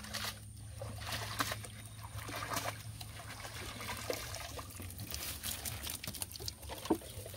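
Water trickling and pouring from a cast net as it is hauled up out of the water hand over hand, with a few sharp drips and knocks.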